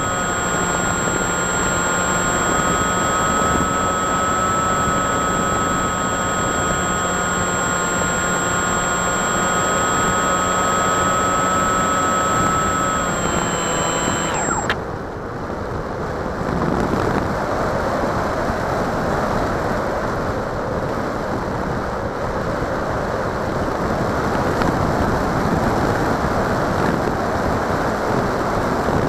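Onboard sound of a model plane's motor and propeller: a steady whine that sags slightly and cuts out about halfway through, leaving the even rush of wind past the airframe.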